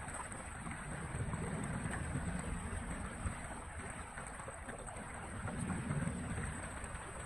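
Muddy floodwater swirling and gurgling down a roadside drain in a whirlpool, with splashing as hands pull debris from the drain opening to unclog it.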